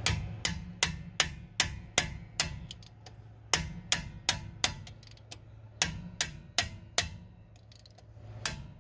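Ratchet wrench with an extension, worked in short strokes on a socket forced over a locking lug nut. It gives sharp metallic clicks, two or three a second, in three runs with short pauses between them.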